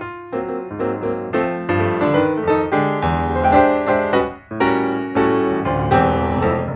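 Piano music, a steady run of notes with chords beneath, with a short dip in the middle.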